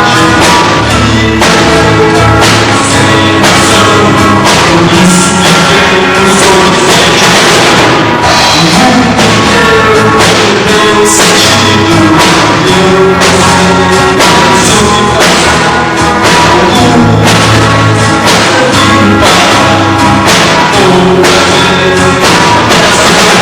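A band playing live and loud during a sound check, with the drum kit keeping a steady beat of about two hits a second under bass and other pitched instruments.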